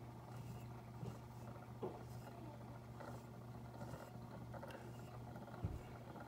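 Faint steady low hum of a small motorised tumbler cup turner slowly rotating a ceramic mug, with a few soft knocks.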